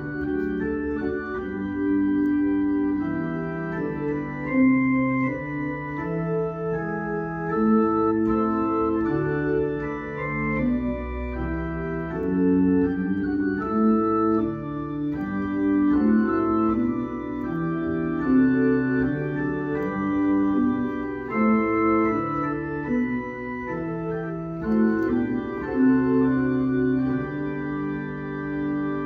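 Electronic organ playing a hymn in sustained chords, with a bass line played on the pedalboard.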